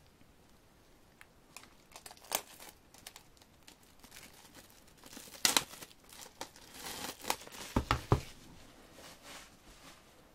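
Plastic shrink-wrap on a CD album crinkling and tearing as it is handled and pulled open, in irregular crackly bursts. A couple of low thumps about eight seconds in.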